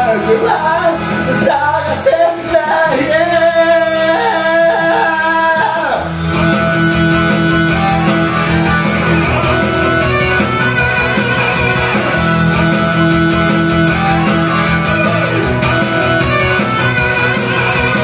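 A man singing through a karaoke microphone over a pop-rock backing track; about six seconds in the voice stops and the backing track plays on alone as an instrumental break.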